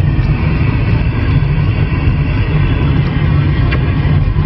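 Steady CB radio static and hiss on the 27 MHz band between transmissions, over a low steady rumble like a car's road noise, with a few faint clicks.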